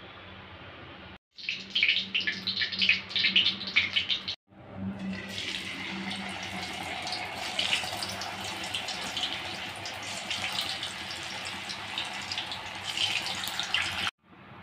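Raw potato fries deep-frying in hot oil in a kadai: the oil sizzles and crackles. Sharp, spiky crackling runs from about 1.5 to 4.5 seconds, then a steadier sizzle with scattered pops, broken by abrupt cuts.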